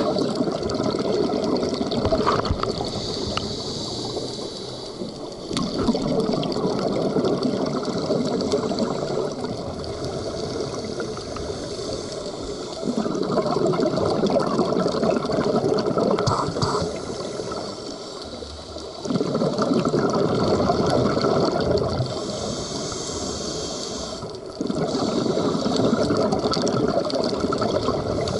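Scuba diver breathing underwater through a regulator. Bubbly exhalations of a few seconds each, about every six seconds, alternate with a softer, higher hiss of inhalation between them.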